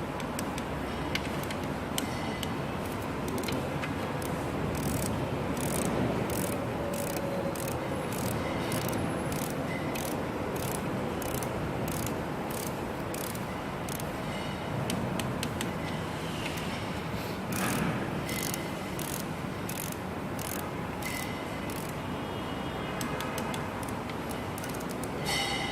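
Ratchet wrench clicking in quick, irregular runs as bolts on a 2GR-FE engine block are turned down during reassembly, over a steady background noise.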